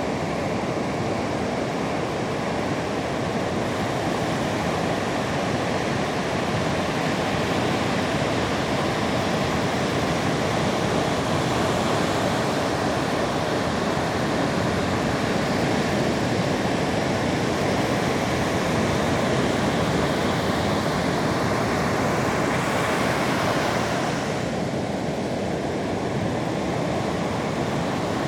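Sea surf rushing steadily on the shore: a continuous even hiss.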